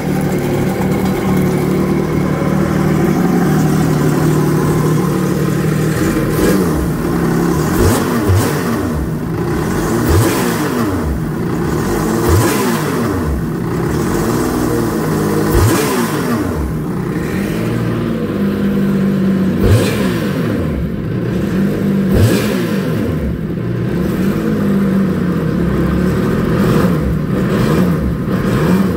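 Freshly rebuilt Yamaha TR-1 three-cylinder engine of a 2016 VX WaveRunner running on a flushing hose. It idles steadily at first, then from about six seconds in is revved in repeated short throttle blips that rise and fall in pitch.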